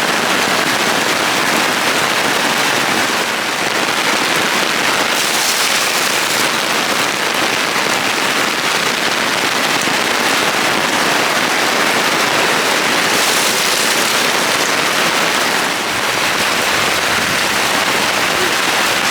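Heavy rain falling steadily, a loud dense hiss of raindrops.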